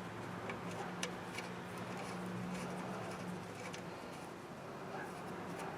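A few faint small clicks of hand work refitting the positive battery cable to a starter motor's terminal, over a low steady hum.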